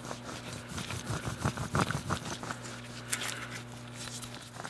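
Worn rear wheel bearing hub from a Subaru Legacy being spun by hand, giving an irregular gritty crackle and clicking: a pretty bad wheel bearing that should not sound like that at all.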